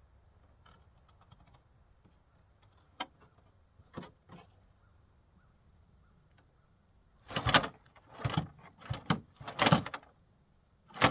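Fillet knife scraping through a crappie against the table in a run of quick, loud strokes starting about seven seconds in, after a few light knocks.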